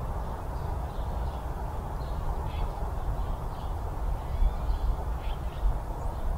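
Steady low rumble with faint, short bird calls scattered through it.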